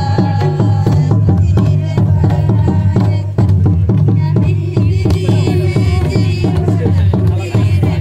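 Folk dance music: hand drums beat a quick, steady rhythm under a melody line.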